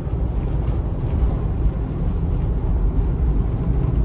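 Steady low rumble inside a car's cabin at highway speed in a blizzard: wind buffeting the car, mixed with tyre noise on the snowy road.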